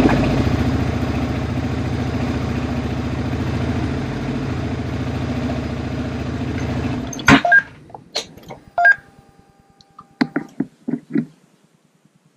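Honda Transalp 700's V-twin engine idling steadily, then cut off abruptly about seven seconds in. Scattered clicks and a few short beeps follow as the handlebar switch is worked, a test of the starter switch after its contacts were cleaned.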